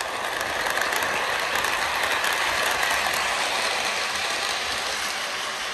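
Lionel Nickel Plate Special O-gauge toy steam train running on the track, its coal tender's built-in sound mechanism giving a steady mechanical noise, a noise that only comes on at moderate throttle and is lost when the train runs fast. The noise fades a little near the end as the train moves away.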